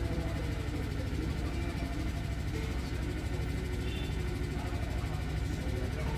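Steady low hum that holds an even level throughout.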